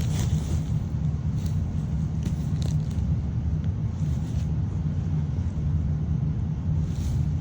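Steady low rumble, with a few faint brief rustles of hands turning dry soil in a potato grow bucket.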